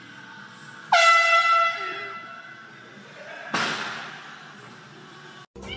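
An air horn goes off suddenly about a second in, one high steady note that fades over about a second. A loud hissing burst follows about two and a half seconds later.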